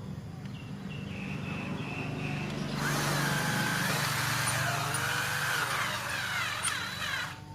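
A power tool's motor running over a steady low hum, its whine wavering up and down in pitch, then cutting off just before the end.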